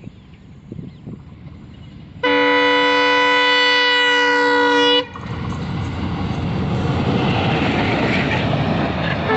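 Horn of an Alco WDM-3 series diesel locomotive sounding one long, steady blast of about three seconds that cuts off sharply. The locomotive and its train then run past at speed with a loud rushing rumble that keeps building.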